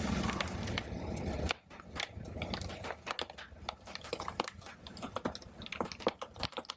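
Hard candy canes cracking and snapping as a car tyre rolls over them and presses them into floral foam: a steady rumble for the first second and a half, then a long run of many sharp, irregular crunches and cracks.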